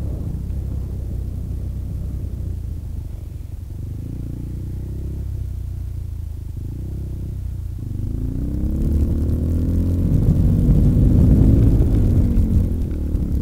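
Yamaha XT350's single-cylinder four-stroke engine running while ridden over a rough gravel track. It runs low and fairly steady at first, then revs up from about eight seconds in, is loudest near the end, and falls back just before it stops.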